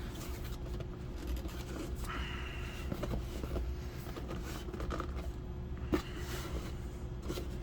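Packaging being handled during an unboxing: a soft scrape or rustle about two seconds in and a few light knocks, the sharpest near six seconds, over a steady low hum.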